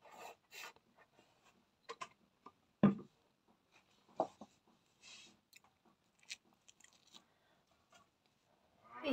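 Close-up mouth sounds of a person eating: soft chewing and lip smacks with scattered small clicks. The loudest sound is a single sharp knock about three seconds in.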